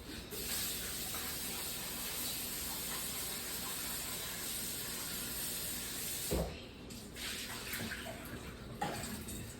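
Kitchen faucet running steadily as cut potatoes are rinsed under it. The water stops about six seconds in with a knock, followed by a few light clatters.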